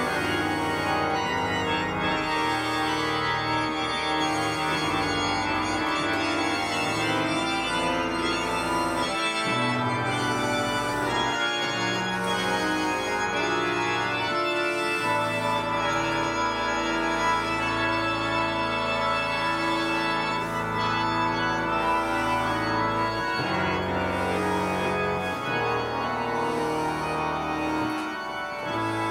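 A three-manual digital organ playing an improvisation: full held chords over a sustained bass, the harmony changing every second or two.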